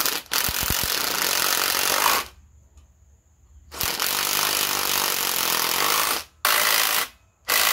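Cordless impact driver hammering in bursts as it runs 10 mm water pump bolts down snug on an LS V8: two bursts of about two seconds each, then shorter bursts near the end.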